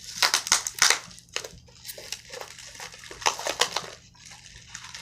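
Speaker box packaging being handled, crinkling and crunching in short clusters of crackles, the first cluster in the first second and another a little past three seconds in.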